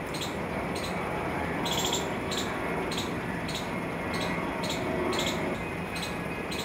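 Steady outdoor background noise, with a short high chirp repeating about twice a second.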